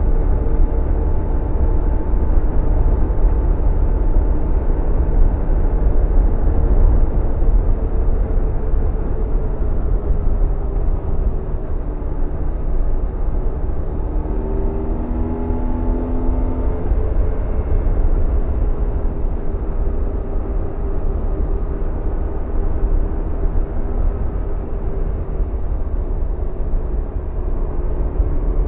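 BMW R1100RT's air/oil-cooled boxer twin running at a steady cruising speed, heard from the moving motorcycle with rushing wind. The engine note holds fairly even, with a brief shift about halfway through.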